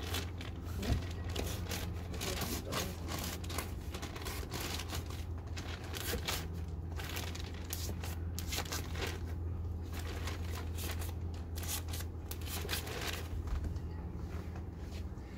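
Plastic bag of potting soil crinkling and rustling as it is handled, gathered and rolled shut, with a steady low hum underneath.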